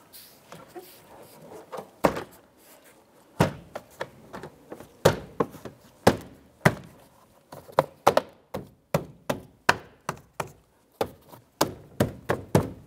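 Hands striking a 2005–2009 Subaru Outback's plastic front door trim panel to snap its retaining clips into the door: a run of about twenty sharp knocks, sparse at first, then two or three a second through the second half.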